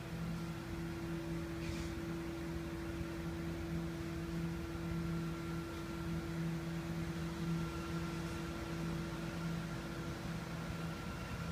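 Steady hum of an electric fan or blower motor, with one constant tone and a lower hum that wavers slightly, over a soft rush of air.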